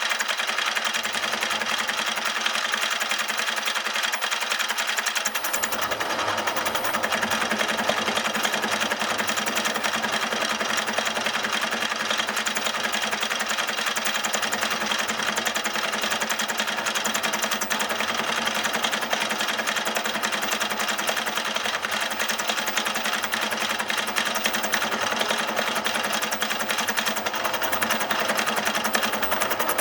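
A workshop machine tool runs steadily with a fast, even mechanical rattle and hum, typical of machining an engine part. A deeper rumble joins about five seconds in.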